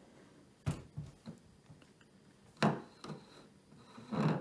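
Raw potatoes being set down one by one on a wooden tabletop: a few dull thuds, the loudest about two and a half seconds in. Near the end comes a longer rubbing, handling noise as the plastic 3D-printed bowl is grasped.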